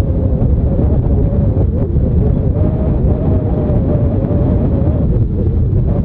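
Strong wind buffeting the microphone, a steady low rumble, with a faint steady hum that wavers slightly in pitch underneath.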